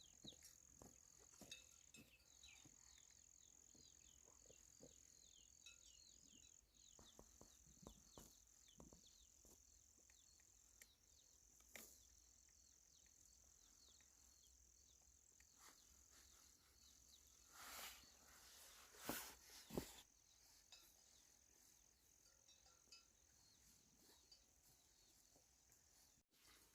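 Near silence in the open countryside: a faint, steady high-pitched insect trill, typical of crickets, with scattered faint clicks and a few brief rustling noises about two-thirds of the way through.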